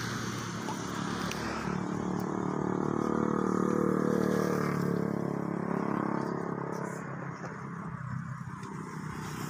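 A motor vehicle passing on the road. Its engine drone grows louder to a peak about halfway through, shifts down in pitch as it goes by, and fades away.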